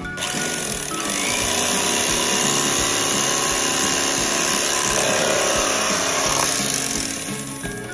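Electric carving knife running steadily as it saws slices off a smoked pork shoulder, starting just after the beginning and cutting out just before the end. Background music plays underneath.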